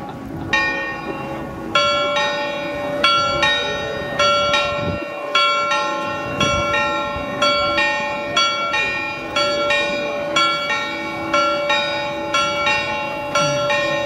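Church bells of the Frauenkirche ringing at noon: a steady run of bell strikes, about two a second after the first couple, each ringing on into the next.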